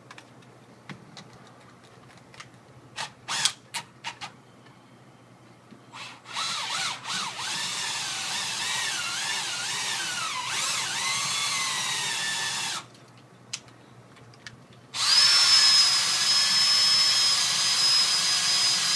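A few clicks and taps, then an electric drill running in two spells while drilling into a safe. The first spell lasts about six seconds, its pitch wavering as the bit loads up. After a short pause the drill starts again with a steady high whine.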